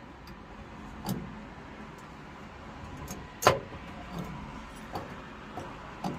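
Scattered clicks and knocks of small boiler valve parts being handled and fitted together, the sharpest about three and a half seconds in, over a steady background hiss.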